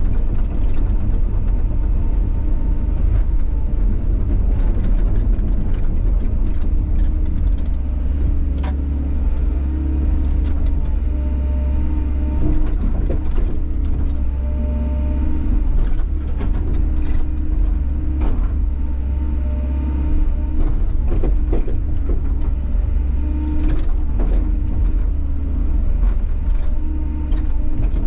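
Bobcat 145 excavator's diesel engine running steadily under load, with a hydraulic whine that comes and goes. Scattered cracks and knocks come from the ripper tooth tearing through frozen ground.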